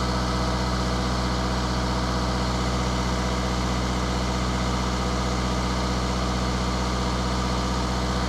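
Vauxhall Insignia 2.0 CDTI four-cylinder turbodiesel running steadily with the throttle held slightly open just after a fuel filter change, pushing fuel through the system to clear any air.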